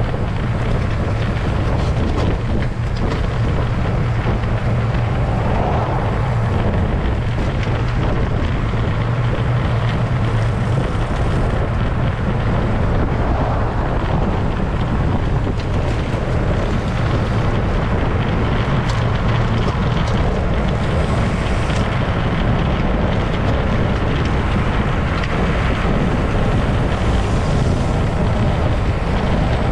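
Steady wind rushing over the microphone of a camera riding along on a moving road bicycle, a constant low rumble with hiss above it.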